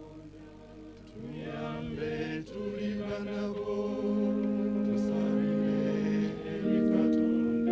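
A choir singing a short chant with electronic keyboard accompaniment, coming in about a second in; a held organ-like keyboard chord enters near the end.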